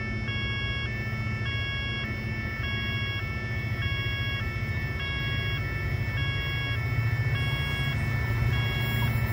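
Two-tone electronic railway warning alarm, switching between two pitches, each held a little over half a second, over the steady low hum of an approaching Adelaide Metro electric train.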